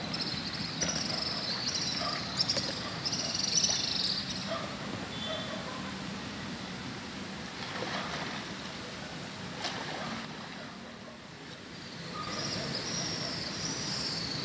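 Steady wash of river water, with a kayak paddle splashing about eight seconds in. High-pitched calls sound over it in the first few seconds and again near the end.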